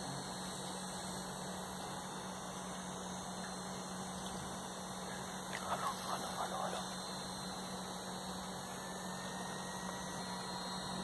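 Steady low electrical hum over a faint hiss, with a few faint short sounds a little past halfway through.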